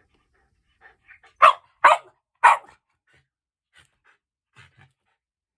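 Shiba Inu barking three times in quick succession, loud and sharp, between faint panting: a hungry dog's demand barks for food.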